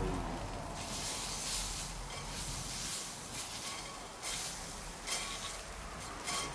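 Campfire burning with a hiss that swells and fades, and a few sharp crackles.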